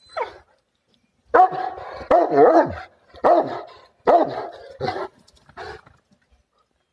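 Dog barking, a run of about seven barks, some drawn out with a wavering pitch, that stops about six seconds in.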